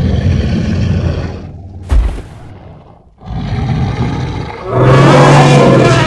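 Designed steppe mammoth sound effect: a low, rough rumbling growl, a sharp thump about two seconds in, then a second rumble that swells into a loud call with a steady low pitch near the end.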